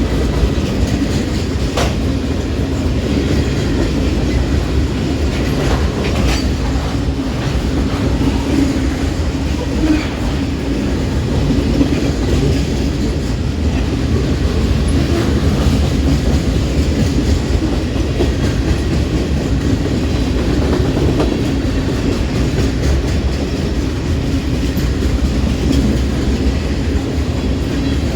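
Freight cars of a ballast train rolling past steadily: a low rumble with the wheels clicking over the rail joints.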